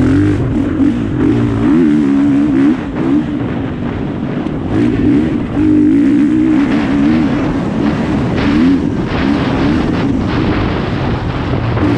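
Enduro dirt bike's engine running hard from the onboard camera, its pitch rising and falling with the throttle and easing off briefly about four seconds in before picking up again, with wind rush and the knocks of the bike over the rough dirt track.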